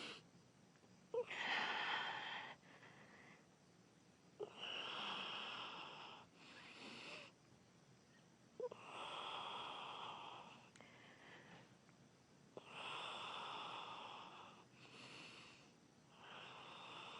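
A person's heavy, slow breathing close to the microphone while she holds a strenuous forearm balance. There are long, hissing breaths of one to two seconds each, about every three to four seconds, with quiet pauses between them.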